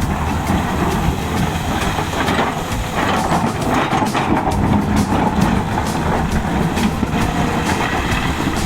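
Heavy earth-moving machine running on a construction site: a steady low engine sound with frequent metallic clanks and clicks throughout.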